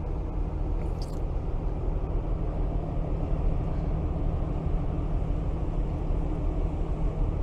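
Steady low rumble of a loaded container ship passing close by on a canal, with a brief faint high sound about a second in.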